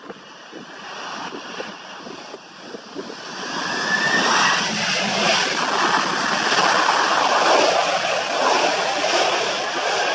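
Airplane engine noise that swells about three and a half seconds in and stays loud as the aircraft passes, with strong wind buffeting the microphone.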